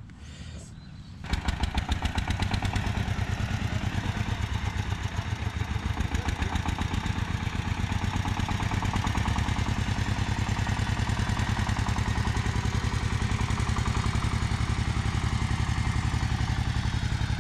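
Small farm three-wheeler's engine starting about a second in, then running steadily with a fast, even chugging beat as the loaded tricycle pulls away across the field.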